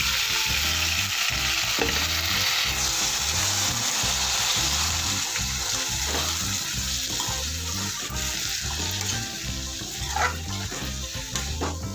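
Chopped leafy greens sizzling loudly in hot oil in a kadai, freshly added. A steel spatula scrapes the pan now and then as they are stirred.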